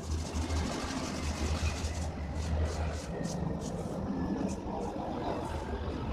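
Paintbrush scrubbing wet paint onto a styrofoam board in quick scratchy strokes, over a low engine-like hum that fades about halfway through.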